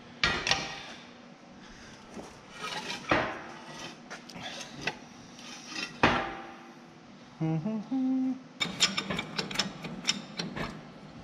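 Steel parts and tools being handled: a few sharp metal clanks that ring briefly, then a quick run of clicking near the end.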